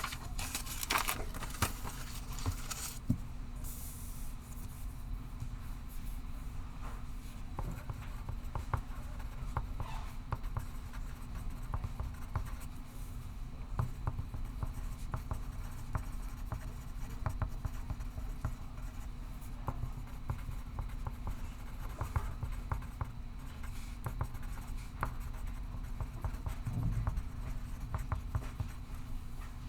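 Pencil writing on paper: a continuous run of short scratching strokes, denser and brighter for the first few seconds, over a steady low room hum.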